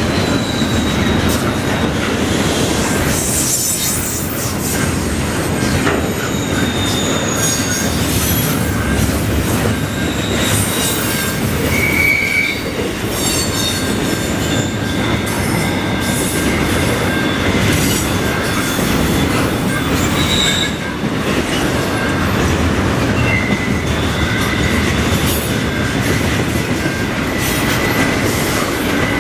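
Double-stack intermodal freight cars rolling past close by: a steady rumble of steel wheels on the rails, with scattered wheel clicks and thin, high wheel squeals that come and go.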